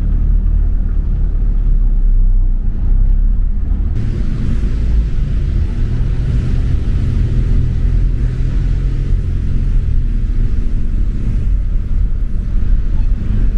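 Car driving slowly off a ferry's vehicle deck, heard inside the cabin as a steady low rumble. About four seconds in, a higher hiss joins the rumble.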